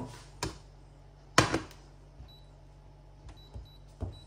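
A sharp knock as a frying pan is set down on a glass electric hob, then several short high beeps from the hob's touch controls as it is switched on and its power set.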